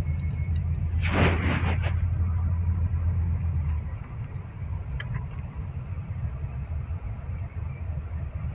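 Moving vehicle's engine and road noise, a steady low rumble that eases off about four seconds in. About a second in, a brief loud rushing hiss cuts across it.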